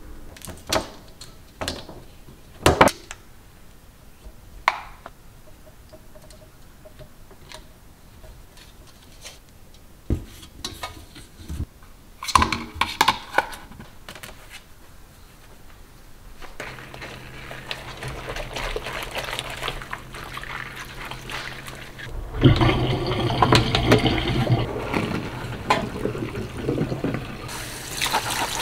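Sharp knocks and clinks of a wire dish rack and other items handled in a stainless steel sink, then water running steadily into the sink, turning to a much louder splashing rush in the last third as the cleaning solution is drained.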